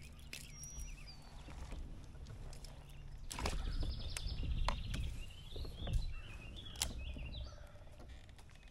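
Songbirds chirping and singing, mostly in the second half, with a few sharp clicks or knocks and a low rumble in the middle.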